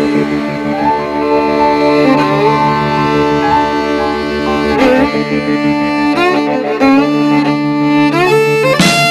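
Background music: a sustained melody of held notes over a steady low drone, with a bowed-string sound.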